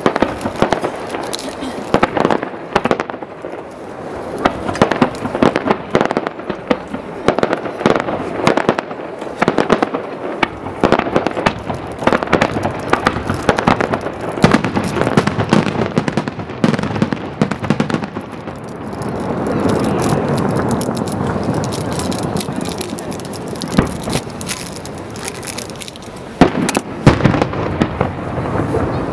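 Aerial fireworks display: a quick, irregular series of shell bursts and crackling stars, with a denser, continuous stretch about twenty seconds in and a few loud bangs near the end.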